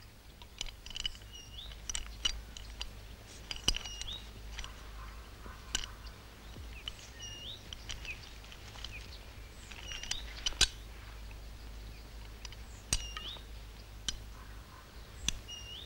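Small birds chirping in woodland: a short hooked chirp repeated every few seconds. Sharp clicks come several times, the loudest about two-thirds of the way through, over a faint low hum.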